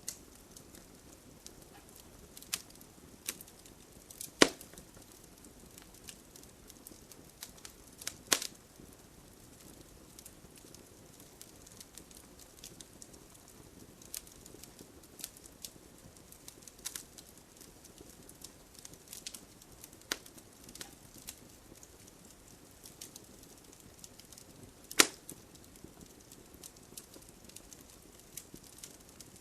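Wood fire burning with irregular crackling: a soft steady hiss under many small scattered snaps, and three loud sharp pops about four seconds in, about eight seconds in, and near the end.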